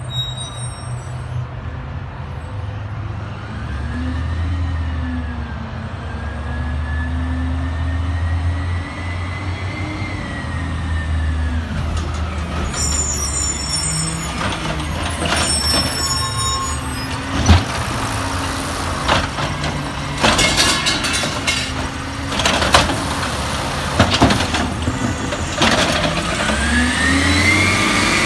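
Peterbilt 320 automated side-loader garbage truck pulling up to a curbside cart, its engine revving up and down with air brakes hissing. Then the truck works with a sharp bang and several knocks and clatters, which fit the lifting arm handling the cart.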